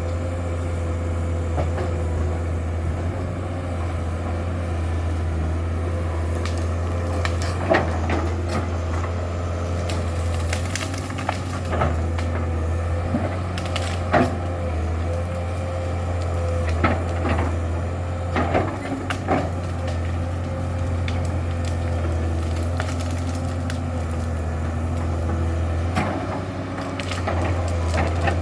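Komatsu PC200-7 excavator's six-cylinder diesel running steadily with a constant whine, while wood cracks and snaps several times over, mostly in the middle stretch, as brush and trees are broken during land clearing.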